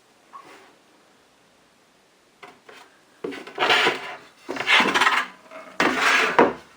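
Oven door parts being handled: a couple of light clicks, then three loud scraping rubs of metal and glass in the second half.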